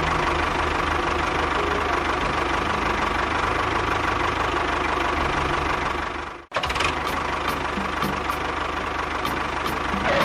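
Steady running of a miniature tractor or bulldozer's motor, with an even low chugging and a steady whine. It cuts off abruptly about six and a half seconds in and starts again straight away.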